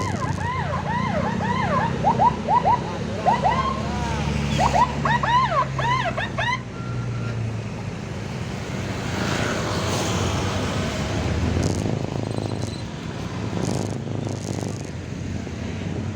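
Electronic emergency siren sounding in quick rising-and-falling sweeps, about three a second, cutting off about six and a half seconds in. A steady engine hum and road and wind noise run beneath it and carry on after the siren stops.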